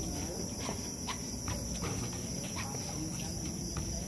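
Steady high chirring of night insects, with a few short, sharp scuffs and knocks from players on a hard outdoor basketball court.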